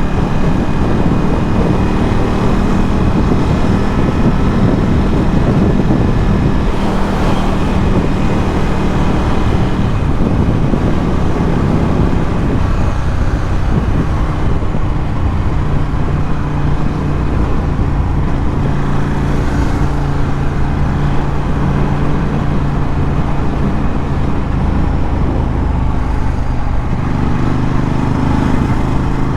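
Ducati Scrambler 1100's air-cooled L-twin running steadily under way through a Termignoni exhaust, its note settling lower about halfway through.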